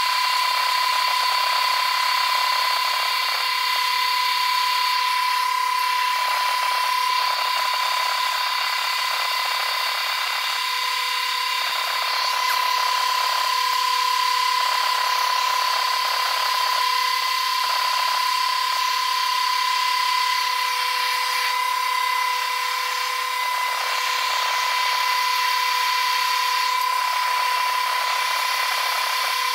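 Stick-welding arc on carbon steel pipe, burning continuously with a dense crackle and hiss, under a steady high whine.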